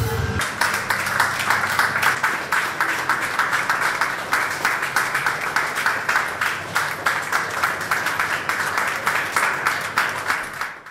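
Music cuts off about half a second in, giving way to an audience applauding: dense, steady hand clapping that fades right at the end.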